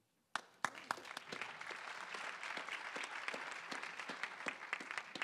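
Audience applauding: a few separate claps about a third of a second in, filling out within a second into a steady round of applause.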